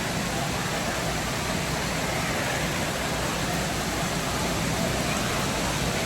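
Steady rushing, hissing noise of an indoor water park: running water and echoing din, with no distinct events.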